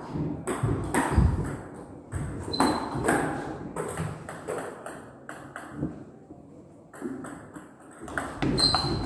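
Table tennis ball bouncing: a series of sharp, light clicks about every half second, with a quieter stretch shortly before the end.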